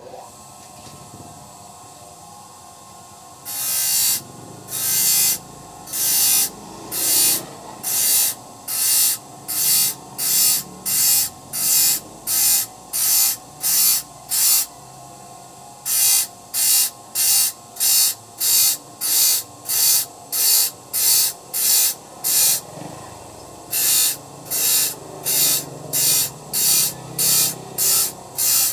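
Small motor-driven grinder running while a handsaw's teeth are sharpened on it one by one: after a few seconds of steady running, short hissing grinding strokes come about once a second, with two brief pauses.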